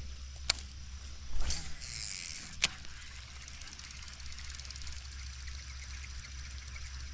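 Fishing reel being cranked, a fast fine ticking, with two sharp clicks and a short rustle of handling in the first three seconds.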